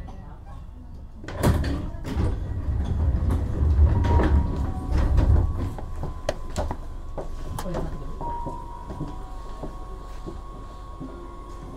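Passenger doors of a Keihan 7200 series train sliding open at a station stop: a sudden loud rush about a second in, followed by several seconds of clunks and rumble that settle down. A faint steady tone carries on under it later.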